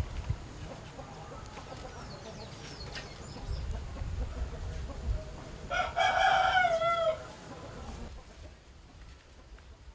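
A rooster crowing once, about six seconds in: a single call of a little over a second that drops in pitch at the end. Faint high bird chirps and a low rumble lie underneath.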